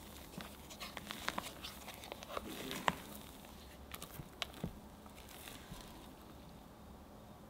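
A spatula folding meringue into thick red velvet cake batter in a bowl: soft wet squelching strokes with small clicks and scrapes against the bowl. The strokes thin out and get quieter near the end.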